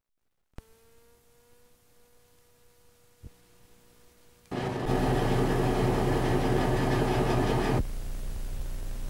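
VHS videotape playback noise: a click, then a faint steady tone with another click about three seconds in. At about four and a half seconds a loud hiss of static with a low hum sets in, dropping to a quieter hiss near the end.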